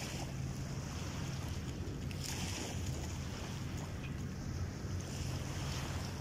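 Seashore ambience: wind on the microphone and light water at the shoreline over a low steady hum, with a few faint ticks.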